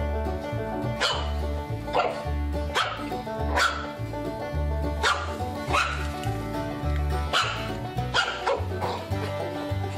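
A small puppy yapping over and over, short high-pitched barks about one a second, over background music with a steady bass line.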